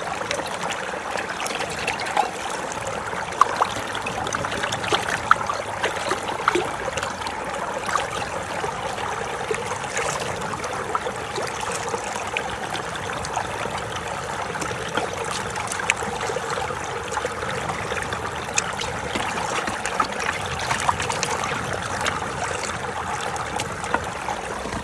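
Running water trickling steadily, with occasional light clinks, as dishes are washed under it.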